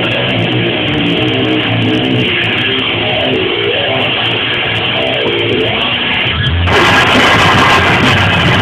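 Live rock band playing: an electric guitar plays a riff on its own, then about six and a half seconds in the drums and the rest of the band come in, fuller and louder.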